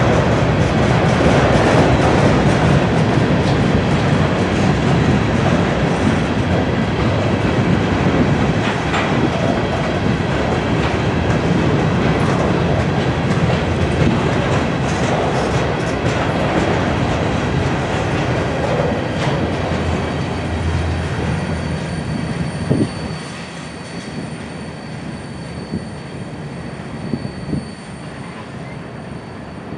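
Grain train's freight cars rolling past, wheels clicking over the rail joints with a steady rumble and an occasional squeal. The sound eases off about 23 seconds in as the train moves away.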